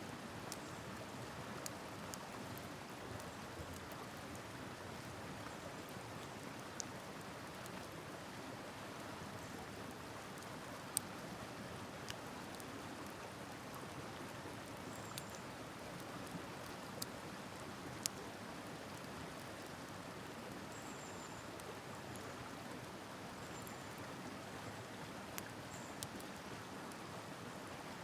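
Wood campfire crackling with irregular sharp pops, the loudest about eleven seconds in, over the steady rush of a river.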